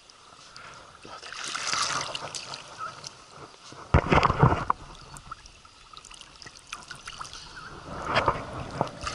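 Shallow river water splashing and trickling, with a loud splash about four seconds in and a smaller one just before the end.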